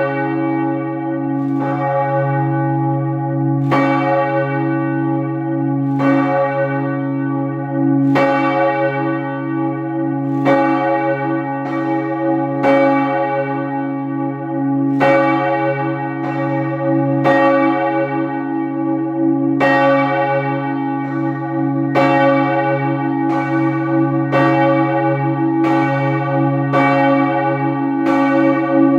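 Heavy church bells, the back four of a ring of twelve, being rung up from the down position: strikes come at uneven gaps of about one to two seconds, each ringing on over a deep hum that never dies away between blows.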